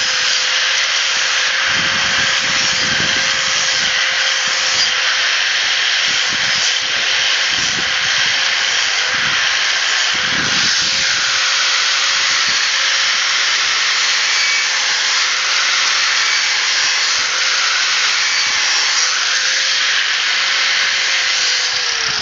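Power grinder running steadily against a lawnmower blade, sharpening it, with a steady motor whine under the grinding hiss; it stops right at the end.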